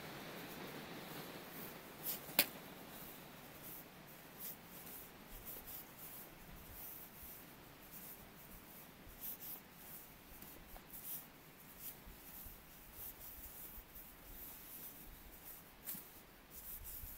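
Faint footsteps on a dirt trail littered with dry pine needles and leaves, as light irregular scratchy steps, with one sharp click about two seconds in.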